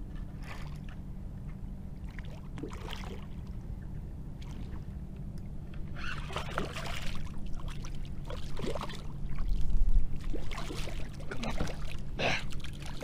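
Water lapping and splashing around a kayak while a hooked sheepshead is fought at the surface. The splashes get busier in the second half, with a heavy low thump about three quarters of the way through.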